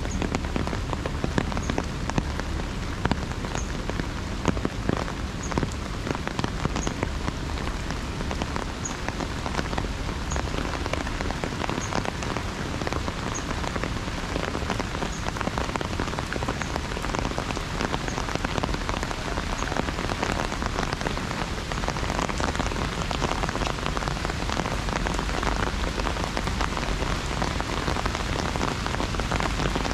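Heavy rain falling on an umbrella overhead: a dense, steady patter of drops.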